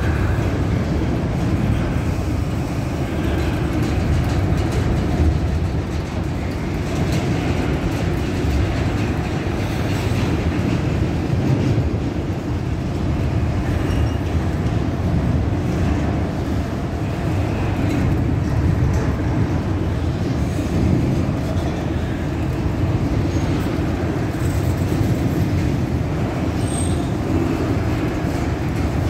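Norfolk Southern freight train rolling past at steady speed: a continuous noise of wheels and cars on the rails, with faint scattered clicks.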